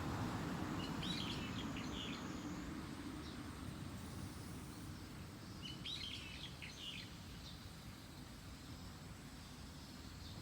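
A bird calling in two short bursts of rapid chirps, about a second in and again about six seconds in, over a steady low background rumble.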